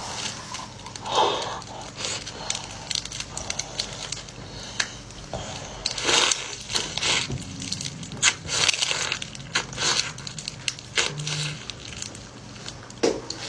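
Close-up chewing and crunching of seafood: irregular crackles and crunches of shell and flesh being bitten, with a few sharper cracks.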